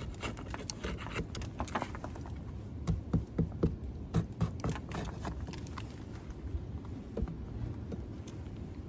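Wooden hive frames being handled: a string of short knocks and scrapes, busiest a few seconds in, over a steady low rumble.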